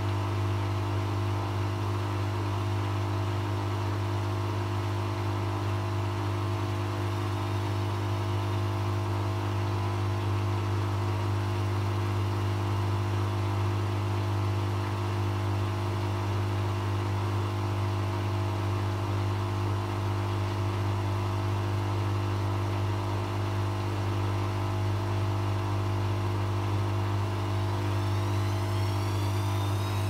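Bush WMNB712EW washing machine on its 1200 rpm final spin, drum and motor running at a steady high speed with a strong constant hum. Near the end a faint high whine starts rising in pitch.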